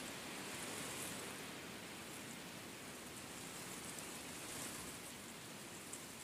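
Steady, even hiss-like noise with no distinct animal calls or feeding sounds.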